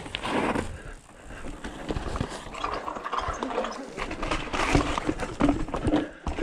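Yeti SB6 mountain bike rattling and knocking down a rocky granite trail: irregular clatter of tyres, chain and suspension over rock.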